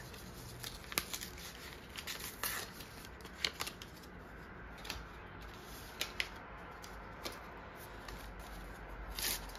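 Handling of a small cardboard tea box and a paper tea sachet: scattered light clicks, taps and paper rustles, about a dozen in all, spread unevenly, with a few sharper clicks around the first, third and sixth seconds.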